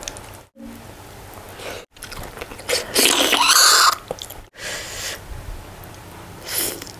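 Close-miked eating sounds: a person chewing and biting into goat meat curry and satay, with mouth noises. It comes in short pieces broken by abrupt silent cuts, and the loudest is a noisy burst about three seconds in.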